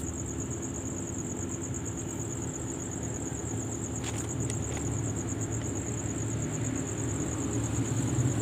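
Steady low rumble of vehicle traffic with a continuous high-pitched insect trill over it. A few faint clicks come about four seconds in, from the fishing rod and reel being handled.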